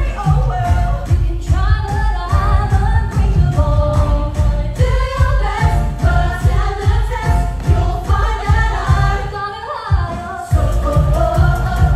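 Women's voices singing an upbeat pop show tune over a heavy, steady bass beat. Near the end the bass drops out for about a second, then comes back in.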